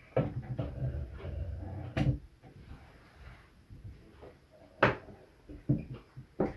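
Handling noise of a soldering iron stand being shifted on a wooden desk. A low rumbling shuffle runs for about two seconds, with sharp knocks about two seconds in, about five seconds in, and at the end.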